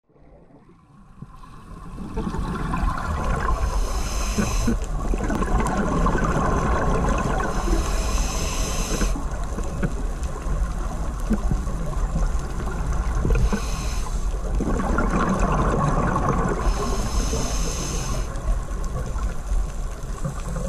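Underwater sound through a camera's housing: a steady low rumble with gurgling and bubbling water, broken by a few irregular stretches of high hiss. It fades in over the first couple of seconds.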